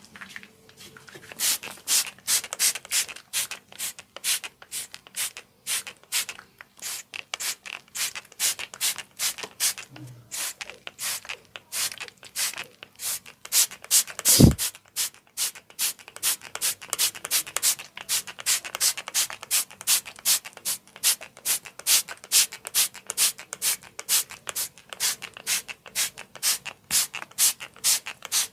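Hands rubbing in quick rhythmic massage strokes, about three to four a second, with one louder thump about halfway through.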